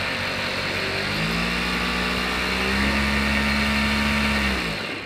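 Juki DDL-8500 industrial sewing machine, its half-horsepower Linko clutch motor humming steadily; about a second in the clutch is engaged by the foot pedal and the machine runs smoothly at speed for about three and a half seconds, then stops. No odd noises: the machine sounds in good working order.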